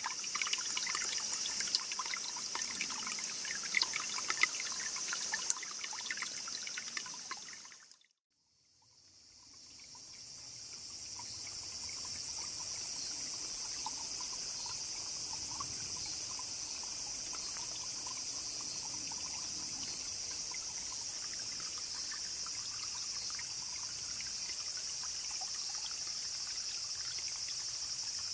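Spring water trickling and dripping, with a steady high insect chorus above it. The sound cuts out about eight seconds in, then fades back in as a steady insect chorus over faint running water.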